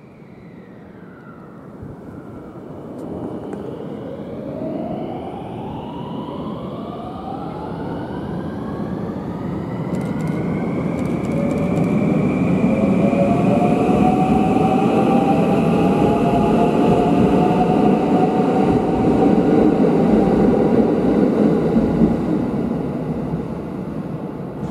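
IR Ishikawa Railway 521-series electric train accelerating past, its inverter-driven motors giving several whining tones that rise in pitch over the first ten seconds or so, then hold steady over the loud rumble of the wheels as the cars go by. The noise fades near the end.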